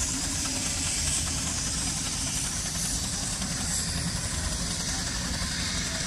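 Steady outdoor noise of wind buffeting the microphone, with a constant hiss and steam traction engines working at a distance.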